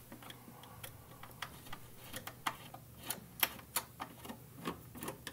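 Small screwdriver backing out the little black screws that hold the Gaggia Titanium's top cover: a series of faint, irregular clicks, about two a second.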